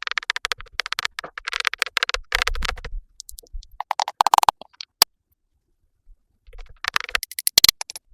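Added ASMR makeup sound effects: rapid crackly scratching and tapping in bursts, a short tone about four seconds in, and a single sharp click about five seconds in.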